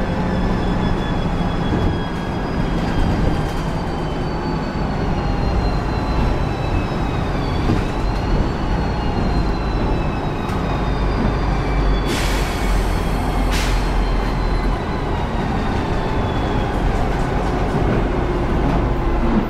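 Volvo B10M Mk IV bus with its Volvo THD102KF diesel and Voith DIWA automatic gearbox, heard from inside the cabin while driving: steady engine and road rumble under a high driveline whine that slowly falls in pitch, dipping briefly about eight seconds in. A short hiss of air about twelve seconds in.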